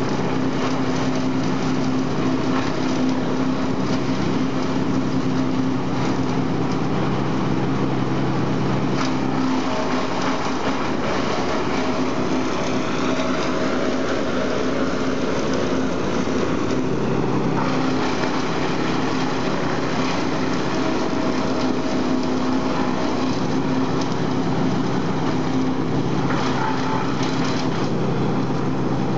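Industrial wood chipper running with a steady engine hum; for several seconds in the middle the even note gives way to a rougher, noisier sound before settling back.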